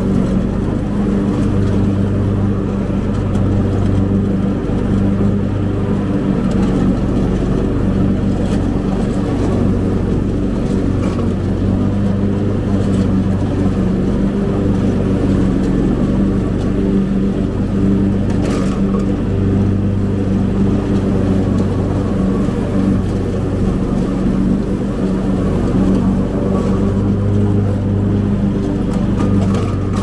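Cub Cadet zero-turn mower's engine running steadily under load while mowing, a continuous even hum that holds its pitch.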